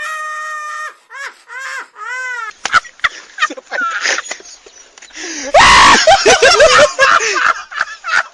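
Loud, exaggerated wailing in mock grief over a dead buffalo. It opens with one long held cry, then comes in wavering, sobbing wails, and there is a louder outburst of screaming cries about halfway through.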